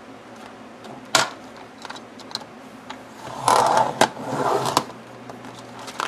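Thin plastic cutting-mat sheet handled on a sliding paper trimmer. A sharp click comes about a second in, then scraping and rustling for about a second and a half, with another click in the middle.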